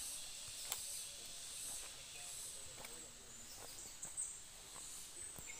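Faint outdoor ambience: insects shrilling high and steady, with a couple of soft clicks.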